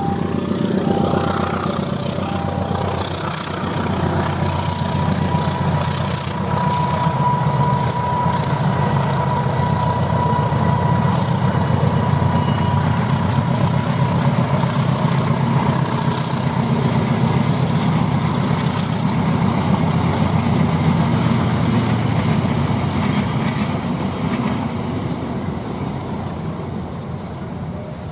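Diesel locomotive passing under power with a passenger train: a steady deep engine rumble with wheel and rail noise. A level-crossing alarm sounds short repeating tones in the first few seconds.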